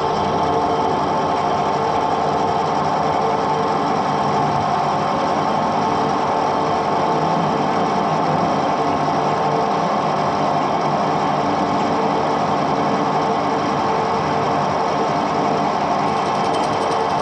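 Edgwick metal-turning lathe running steadily, its spindle and gearing giving a constant hum with a few fixed tones.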